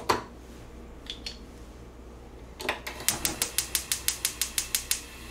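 Gas stove burner igniter clicking as the knob is held to light the burner. There is a single click at the start, then a fast, even run of ticks, about six or seven a second, from about two and a half seconds in, lasting a little over two seconds.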